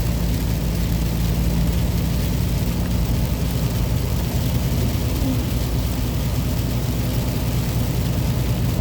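A vehicle engine running steadily with a constant low hum and an even rumble over it.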